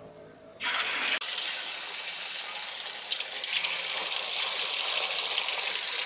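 Catfish pieces, coated in turmeric and cornflour, going into hot oil in a wok and deep-frying with a loud, steady sizzle. The sizzle starts about half a second in and gets fuller about a second in.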